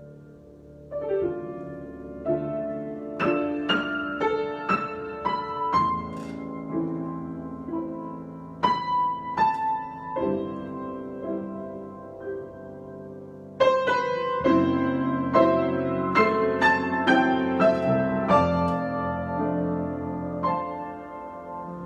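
Solo piano improvising: struck notes and ringing chords. It grows louder and busier about two-thirds of the way in.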